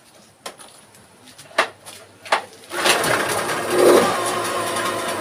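A few sharp clicks, then a Yamaha 15 hp outboard motor starts a little under three seconds in and runs steadily, swelling briefly about a second later. It is being test-run after its carburetor was refitted.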